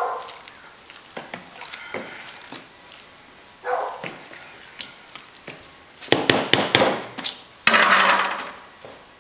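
Mash spoon stirring thick wet grain mash in a plastic cooler mash tun, knocking and scraping against the cooler's walls, with two louder stretches of noise near the end.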